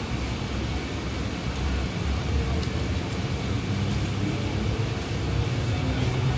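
Electric suburban train (EMU) rolling slowly past on the adjacent track: a steady low rumble and motor hum that grows a little louder.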